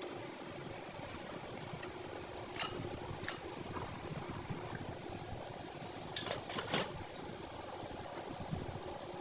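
A steady low workshop hum with a handful of sharp clicks and knocks: two about three seconds in and a quick cluster of three about two-thirds of the way through. These are typical of metal parts being handled while a steering rack is taken apart.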